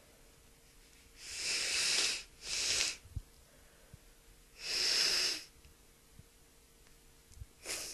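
A woman with a heavy cold sneezing and breathing hard through her nose and mouth. There are three loud breathy bursts in the first two-thirds and a shorter one near the end.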